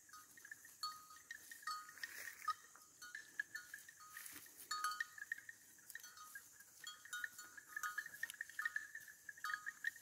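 Bells on grazing cattle clanking irregularly, in short clusters of faint ringing notes.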